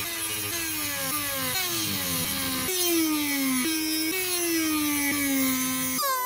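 Handheld rotary tool with a small cutoff wheel cutting notches into a wooden handle. The motor's whine drops in pitch each time the wheel bites into the wood and jumps back up as it lifts off, over and over. The sound changes abruptly near the end.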